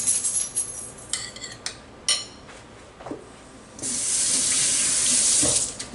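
Kitchen tap running in two spells, the second about four seconds in and lasting about two seconds, with a couple of short ringing clinks of metal or dishes in between.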